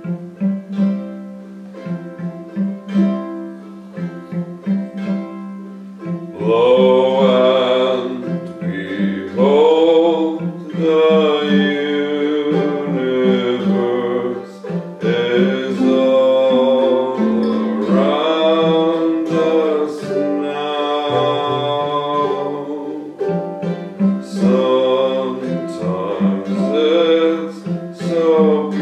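Acoustic song: a cello sustaining low notes under a small plucked string instrument, joined about six seconds in by a man's singing voice carrying the melody.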